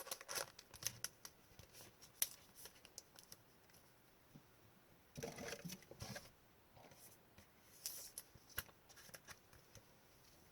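Faint rustling and light clicks of plastic card sleeves being handled as a thick trading card is slid into one, with a longer rustle about halfway through.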